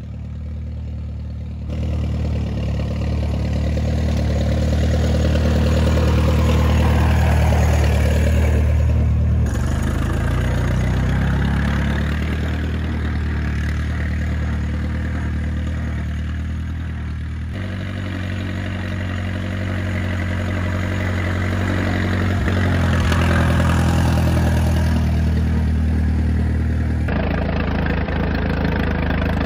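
1927 Farmall Regular tractor's four-cylinder engine running steadily under way after carburetor fine-tuning, the sound growing louder as the tractor comes closer. Near the end it is heard close up from on the tractor.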